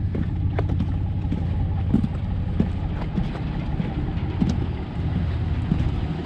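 Footsteps crunching on gravel, a short tick every half second to a second, over a steady low hum.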